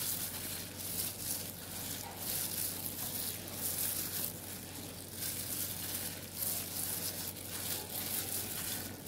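Boiled flat beans and green tomatoes being mashed and mixed by hand into a bhorta: faint, irregular soft squishing and crushing, over a low steady hum.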